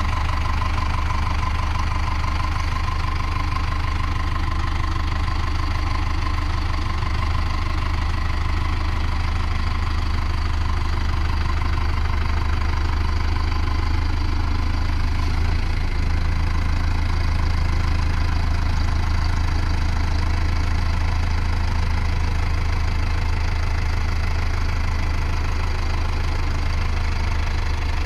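Mahindra Arjun Novo 655 4x4 tractor's diesel engine running steadily as the tractor drives slowly along, with a faint high whine that fades out about halfway through.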